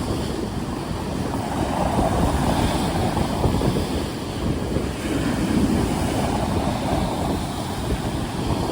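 Rough sea waves washing and surging continuously, with wind buffeting the microphone as a low rumble.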